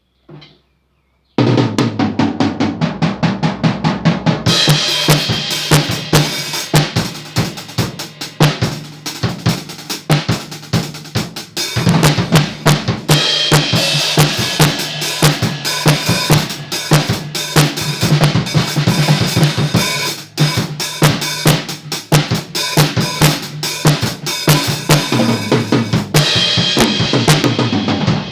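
RMV Crossroad acoustic drum kit played: after a soft tap, the kit comes in about a second and a half in with rapid snare, tom and bass drum strokes, and cymbals join about three seconds later and keep ringing over the beat.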